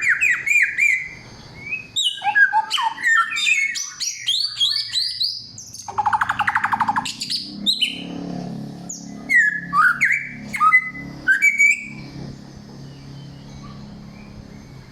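Samyong songbird singing loudly through a string of varied whistled phrases: quick repeated down-slurred notes at first, then mixed whistles, a buzzy rattle about six seconds in and more whistles, with the song thinning out near the end. A low steady hum sits underneath from about midway.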